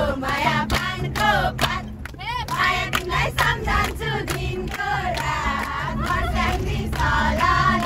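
A group of voices singing a Nepali dohori folk song together, loud and shouted, over the steady low hum of a bus engine.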